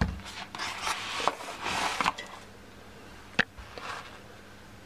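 Hands handling a cardboard box and a small stainless-steel atomizer: rustling and scraping with a few light knocks for about two seconds, then quieter, with one sharp click a little past the middle.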